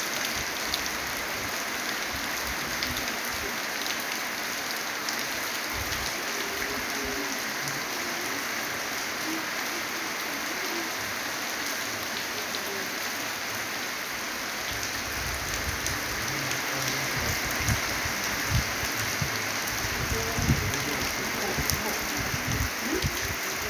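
Heavy rain falling steadily, a dense even hiss of rain on the ground, foliage and roofs. Irregular low rumbles and bumps come in during the second half.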